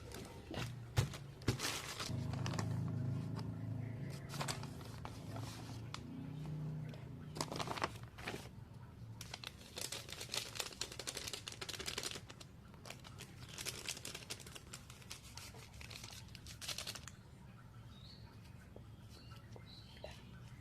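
Scattered clicks, scrapes and crinkling of things being handled, with a low hum through the first several seconds and a few faint high chirps near the end.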